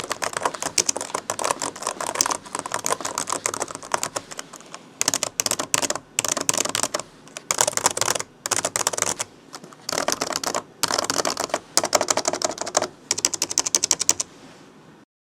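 Typing on an old Vaio laptop keyboard: fast runs of key clicks broken by short pauses, stopping near the end.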